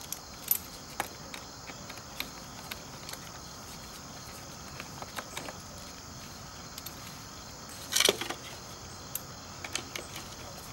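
Hand ratchet wrench working the screws of an aluminium battery case: scattered light clicks and ticks, with a louder rattling clatter about eight seconds in.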